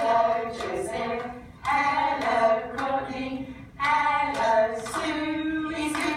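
A woman singing a simple song in phrases of held notes, a new phrase starting about every two seconds.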